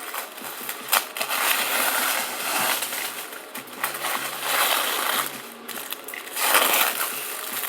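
Paper wrapping of a firecracker brick being torn open and crumpled by hand, in several rustling stretches, with a sharp click about a second in.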